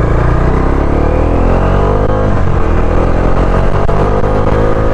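Motorcycle engine accelerating, its pitch climbing, dropping at a gear change a little past two seconds in, then climbing again.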